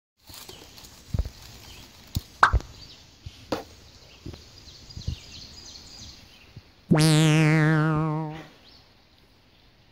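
A few scattered light clicks and taps, then about seven seconds in a loud comedic sound effect: a steady buzzy tone with a wavering whistle sliding down over it, lasting about a second and a half.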